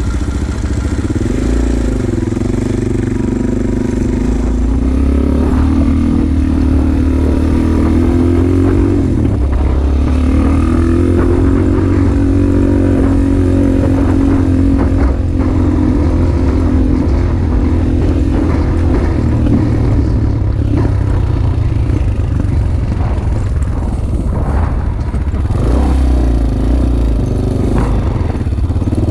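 Dirt bike engine running while ridden, its pitch rising and falling with the throttle, with scattered knocks and rattles from the bike over the rough track.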